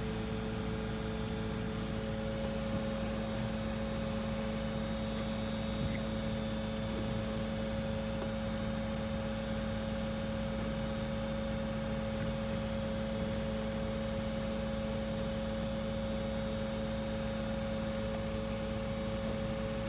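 Steady mechanical hum with two steady tones, unchanging throughout.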